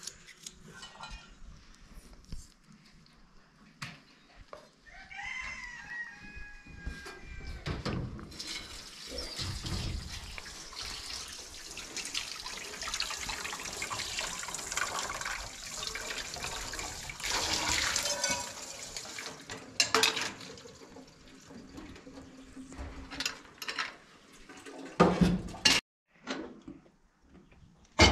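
Water running or pouring for about eleven seconds, set among scattered clicks and knocks of kitchen things, with a few sharp, loud knocks near the end.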